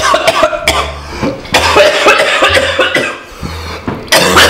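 A man coughing repeatedly, in a run of sharp coughs, with a red pepper flake caught at the back of his throat and burning.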